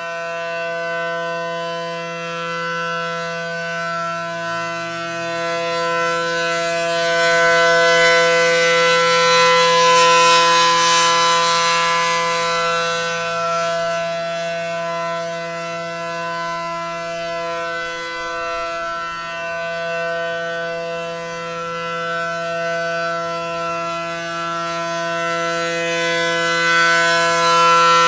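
ACA Allertor 125 rotating outdoor warning siren sounding its steady Alert signal, one unwavering chord-like tone. It swells louder about a third of the way in and again near the end as the horns sweep round.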